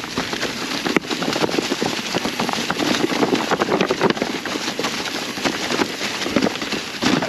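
Mountain bike descending a rocky trail covered in dry fall leaves: a steady crackling rustle of leaves under the tyres, with many sharp clicks and knocks from rocks and the bike rattling.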